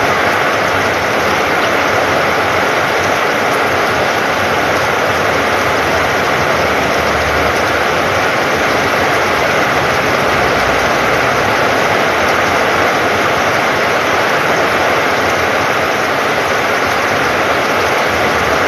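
Heavy rain pouring steadily onto a corrugated roof and flooded ground.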